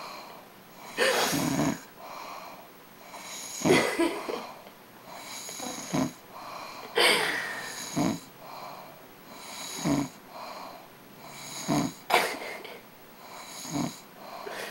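A sleeping woman snoring, with a rough snore on each breath about every two seconds.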